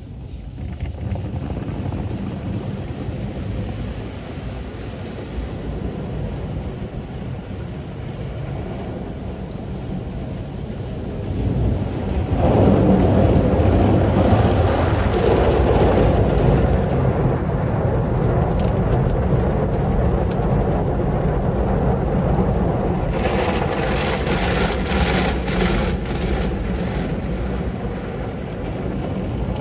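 Automatic car wash heard from inside a truck's cab: water spray and the wash's cloth brushes sweeping over the windshield and body. It gets louder about twelve seconds in, with crackly bursts of spray hitting the glass in the second half.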